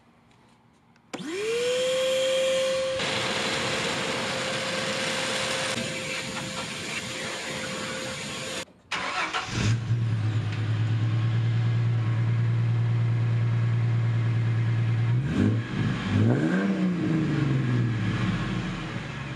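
A shop vac motor spins up with a rising whine and blows air steadily into the exhaust pipe to check for leaks, then cuts off. After a short gap, the 1996 Mustang's 3.8 V6 starts and idles steadily through its new true dual exhaust with Flowmaster 50 mufflers. It is revved once about two-thirds of the way in, then settles back to idle.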